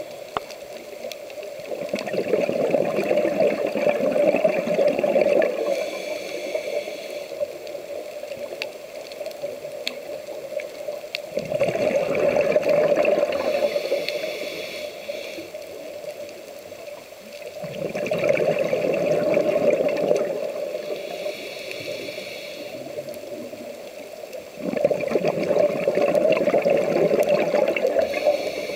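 A scuba diver breathing through a regulator, heard underwater. There are four long gurgling rushes of exhaled bubbles, about every seven seconds, with a softer hiss of inhaling between them.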